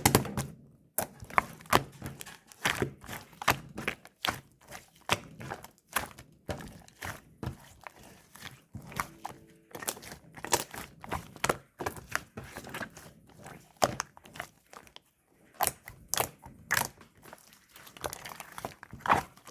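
Milk slime being squished and poked by hand, giving a steady run of irregular sticky clicks and pops, with occasional thunks against a wooden desk.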